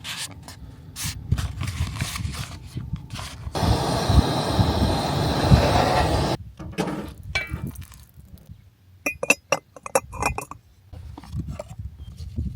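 Cookware and dishes clinking and scraping in a stretch of kitchen work, with a loud steady hiss for about three seconds in the middle, then a run of sharp clinks, some of them ringing briefly.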